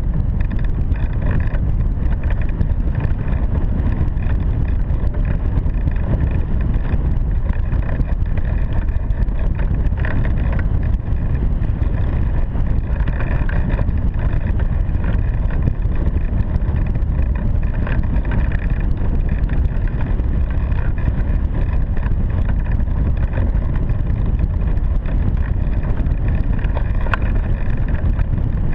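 Airflow buffeting a glider-mounted action camera's microphone in hang glider flight: a loud, steady rumble of wind noise with no breaks.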